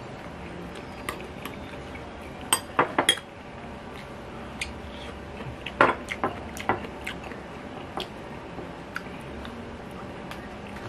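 Metal spoon and fork clinking against a ceramic bowl and plate as food is served and eaten: a quick run of sharp clinks about two and a half seconds in, another cluster near six seconds, and lighter taps in between.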